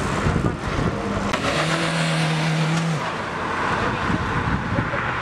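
Small hatchback's engine revving hard as the car accelerates away, holding one steady note for about a second and a half before easing off.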